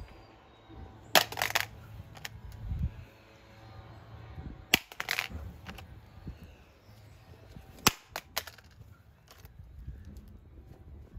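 LG Optimus smartphone, its screen already shattered, striking hard stone ground again and again. Several sharp cracking clatters, the loudest about one, five and eight seconds in.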